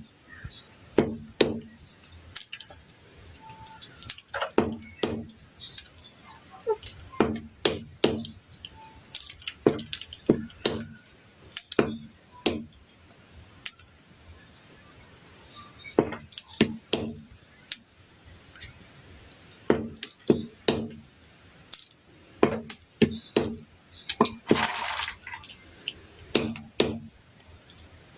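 A blade chopping Chinese olives to get at the pits: sharp strikes in quick clusters of two to four, a second or so apart.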